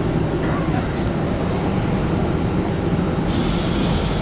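Steady loud engine rumble with no speech; a higher hiss comes in suddenly about three seconds in.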